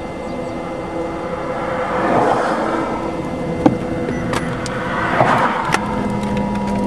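Cars passing on a wet road, their tyre hiss swelling twice, over a steady hum; a few sharp clicks in between.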